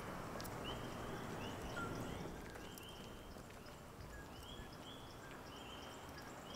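Night chorus of coquí frogs: short, high chirping calls from several frogs overlapping, about two a second, over a low background hum.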